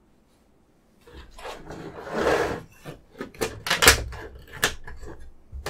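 Cardboard box and plastic packaging of a diecast model car being handled and slid open: a second of quiet, then scraping and rustling with several sharp knocks.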